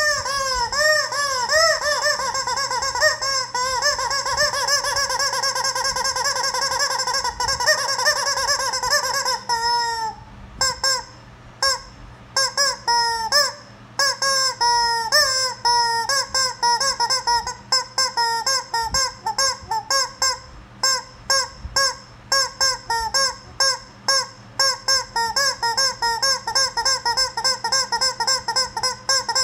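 Rubber chicken squeaky toy squeezed over and over, giving honking squawks. For about the first ten seconds the squeezes come in a fast unbroken run; after a short pause they come as separate squawks, about one or two a second.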